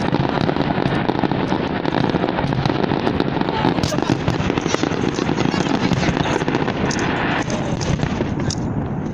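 Fireworks going off in quick succession: a loud, dense crackle of many small bangs and pops, with no pause, thinning slightly near the end.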